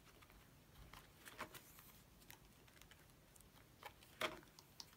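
Faint crinkles and clicks of clear plastic photocard sleeve pages being turned in a ring binder, with one sharper click a little past four seconds in.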